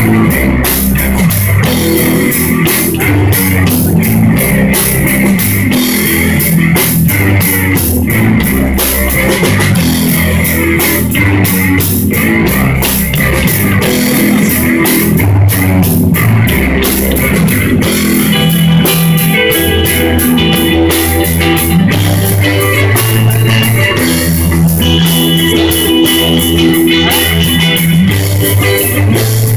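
Live rock band of electric guitars and a drum kit playing a slow psychedelic stoner-rock instrumental. About two-thirds of the way through, the drumming thins out and long held guitar notes come to the front.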